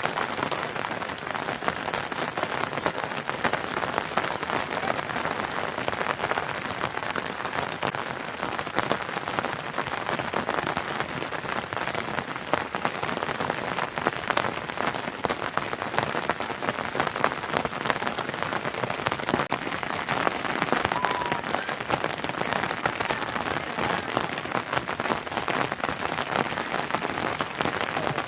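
Steady rain falling and hitting surfaces, a constant hiss dotted with many small drop impacts.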